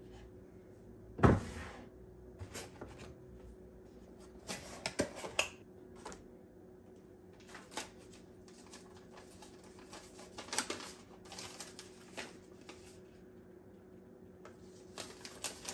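Household clutter being handled and sorted out of a cabinet: a single hard knock about a second in, then scattered light clatter and paper rustling, over a faint steady hum.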